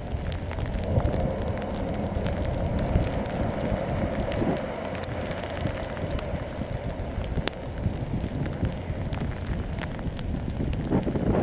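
Rain and wind on the microphone: a steady low rumble with scattered raindrop ticks, and a loud gust just before the end. Under it, during the first half, a faint steady hum from a distant train crossing a steel railway bridge.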